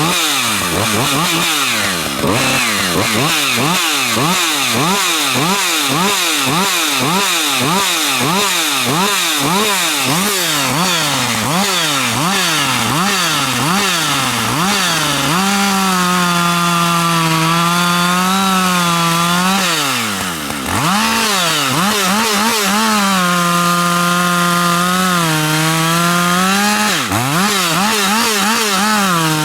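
Two-stroke chainsaw revved up and down in quick blips, about once a second, for the first half. It is then held at full throttle through a cut into a log, with small wobbles in pitch as it works, and drops briefly twice before going back to full revs.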